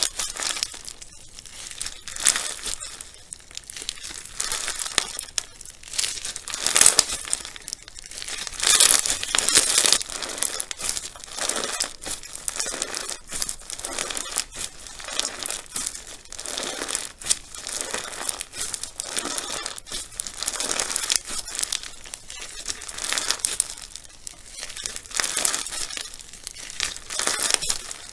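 Slime being squeezed and worked by hand, giving a dense, irregular crackling and popping that comes in uneven waves.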